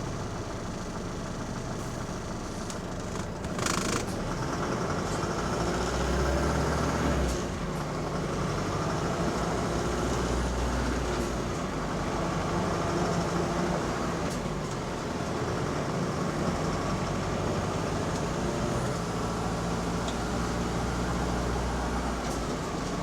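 Double-decker bus engine running, heard from inside the bus, its low drone swelling and easing as it works. A short hiss comes about four seconds in.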